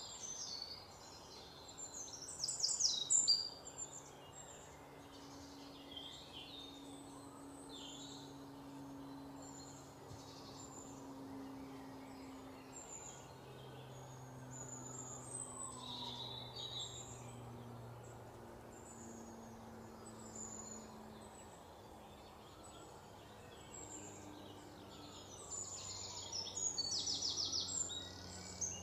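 Small birds chirping and twittering, with quick trills of rapidly repeated notes about two seconds in and again near the end, over a faint low steady hum.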